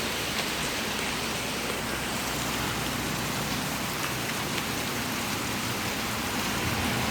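Heavy rain falling steadily in a storm, an even hiss with no change in strength.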